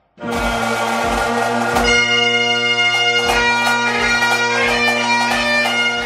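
Music: a bagpipe tune over steady drones, with a bass drum beating regularly. It starts suddenly just after a brief silence.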